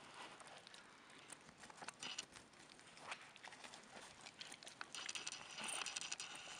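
Young porcupines gnawing and chewing apple pieces: faint, irregular crunching clicks. A steadier, higher sound joins about five seconds in and is the loudest part.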